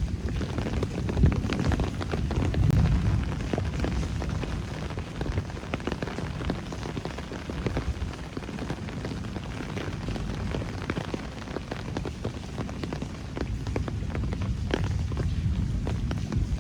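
Steady rain falling, with a dense patter of individual drops striking close by over a low rumble.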